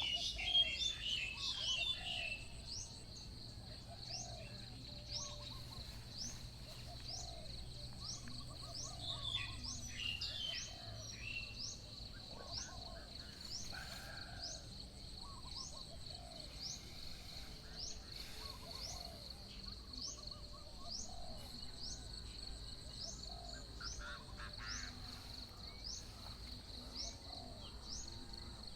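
Birds calling outdoors: a short rising chirp repeats about once a second over a steady high-pitched whine, with a lower call every second or so and bursts of twittering near the start and again about nine seconds in.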